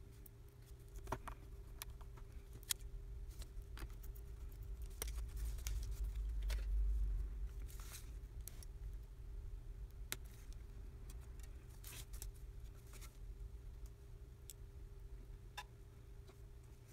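Scattered small clicks and taps of fingers and metal tweezers handling the parts of an opened OnePlus 3T smartphone, with a low handling rumble that swells around the middle and a faint steady hum underneath.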